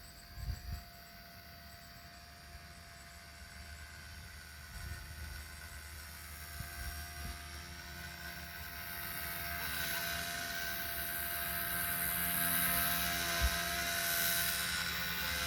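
XK K110S micro RC electric helicopter in flight, its motor and rotors giving a steady whine. It gets steadily louder over the second half.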